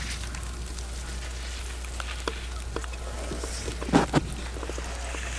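Home camcorder sound on a ski slope: a steady low hum and faint hiss, a few light clicks, and two sharp thumps about four seconds in, the loudest sounds here.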